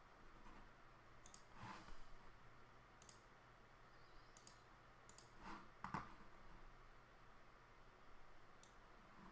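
Faint computer-mouse clicks, about seven of them at uneven intervals, against near silence in a small room.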